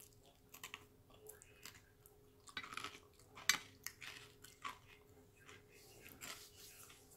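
Close-up eating sounds: scattered crisp clicks and short crunches from chewing, the loudest a sharp click about three and a half seconds in. At the start a wooden corn dog stick is held between the teeth.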